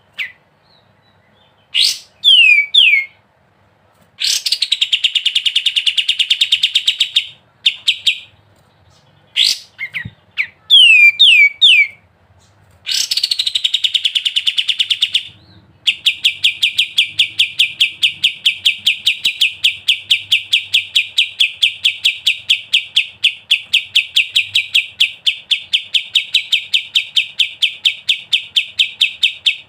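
A kapas tembak songbird singing in loud bursts: a few quick falling whistles and short rapid trills, then from about halfway through one long, unbroken trill of fast evenly repeated notes, the 'ngebren' rattle prized in this bird.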